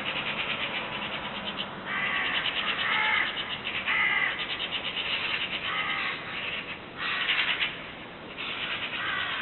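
Birds calling: a string of short, harsh calls at irregular intervals, over a raspy chatter.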